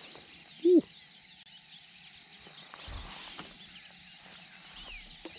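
Many small birds chirping in a dawn chorus, with a single short, loud, low-pitched sound that bends in pitch just under a second in, and a soft rush of hiss about three seconds in.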